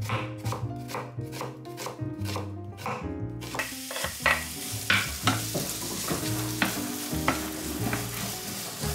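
Chef's knife chopping an onion on a wooden cutting board, about three cuts a second. About three and a half seconds in, the sliced onion goes into a hot frying pan and starts to sizzle while a wooden spatula stirs it, with scattered taps against the pan.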